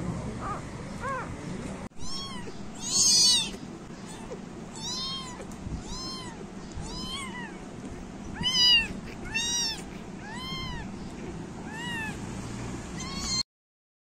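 A young kitten mewing over and over, short high calls about two a second, each rising and falling in pitch, with two louder ones. The calls stop abruptly near the end.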